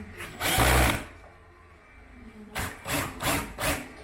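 Hand work on a car's plastic rear diffuser: one heavy thump about half a second in, then a quiet spell and a run of about four quick, even rubbing strokes near the end.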